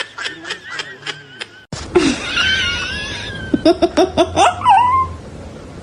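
People laughing in quick pulsed bursts. The laughter cuts off suddenly under two seconds in, and another burst of laughing follows a second or so later.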